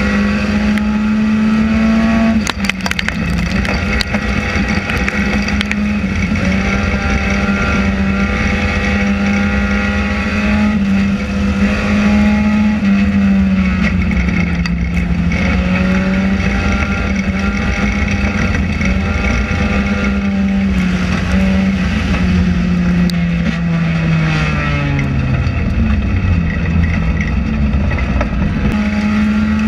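Enduro race car's engine running hard, heard from inside the stripped, caged cabin, its pitch dipping and rising again and again as the car goes around the track, with a long fall about three quarters through before it picks up again near the end. A few sharp knocks sound about three seconds in.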